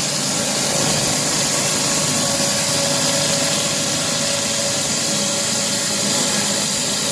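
Pressure washer running steadily under an even hiss of spray.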